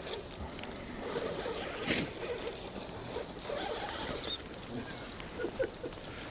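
Radio-control crawler truck working over wet, muddy trail ground, its small electric motor and drivetrain running in short pushes. There is a sharp click about two seconds in, and high chirps near the middle.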